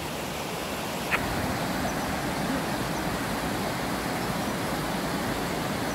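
Steady rush of a fast mountain stream cascading over rocks, with one short high sound about a second in.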